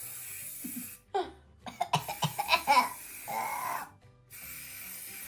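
A woman laughing and coughing in short bursts for a few seconds, with a steady aerosol hairspray hiss before and after, and light background music underneath.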